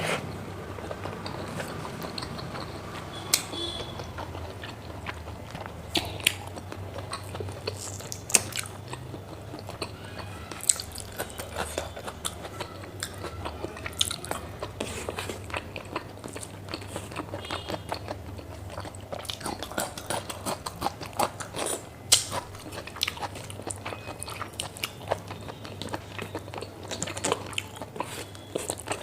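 Close-miked chewing and biting as pork fat and rice are eaten, with many short, sharp mouth clicks and smacks scattered throughout.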